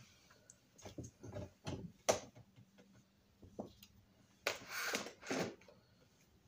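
Light handling noises: scattered small clicks and taps, with two short rustling sounds about five seconds in.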